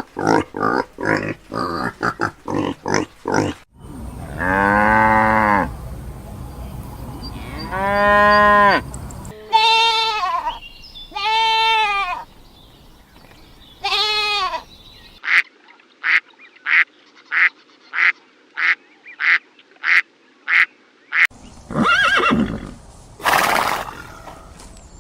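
A series of farm animal calls: a quick run of short calls, then two long low calls, several shorter higher calls, and a run of about a dozen short calls evenly spaced about two a second.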